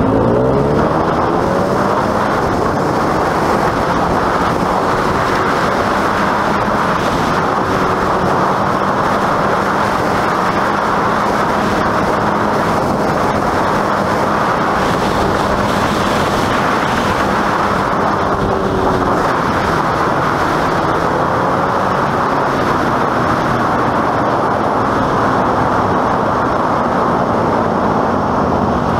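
Honda FourTrax ATV engine running under way over a steady rushing noise, its pitch climbing at the start, easing off and picking up again about two-thirds of the way through, and rising again near the end.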